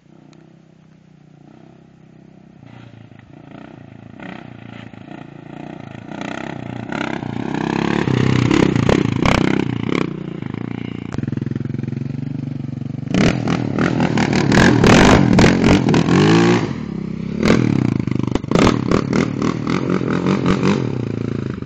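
Sport quad (ATV) engine approaching and growing steadily louder over the first several seconds, then revved hard close by in a long burst, followed by a run of short throttle blips near the end.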